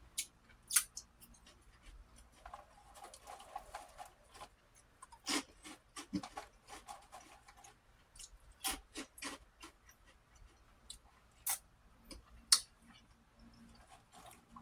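Someone eating prawn crackers: irregular crisp crunches and mouth clicks, a second or more apart, the loudest near the end.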